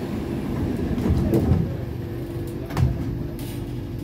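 Sliding doors of an SMRT C751B train closing, with a brief surge of sound about a second in and a thud as they shut near three seconds in. A steady hum from the carriage runs underneath.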